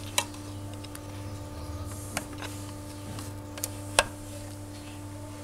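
A steady low hum with a few sharp clicks scattered through it, the strongest about four seconds in.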